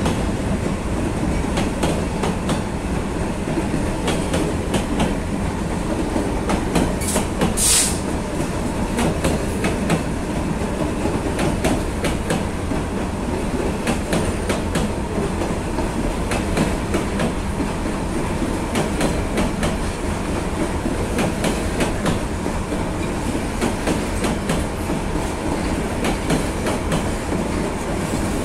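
Diesel-hauled freight train passing close by: a locomotive, then a long line of covered hopper wagons rolling past with a steady rumble and wheels clicking over the rail joints. A brief high squeal comes about seven seconds in.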